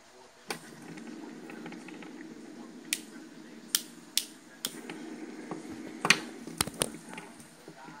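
Sharp plastic clicks from a Fidget Cube's buttons and switches being pressed, about eight of them, irregularly spaced, with a cluster of three just after six seconds. Under them a steady low hum starts about half a second in.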